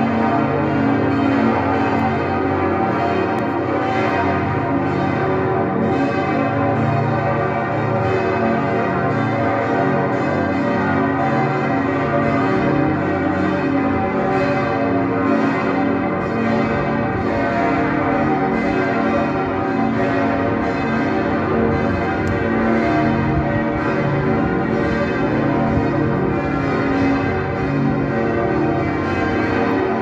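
Several church bells pealing together from the tower, a loud, continuous ringing of many overlapping tones with no pause.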